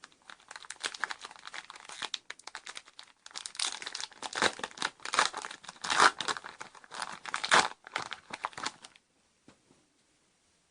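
Foil wrapper of a Yu-Gi-Oh Magic Ruler booster pack crinkling and tearing as it is opened: a dense run of crackles with a short break about three seconds in and the loudest crinkles around six to seven and a half seconds in.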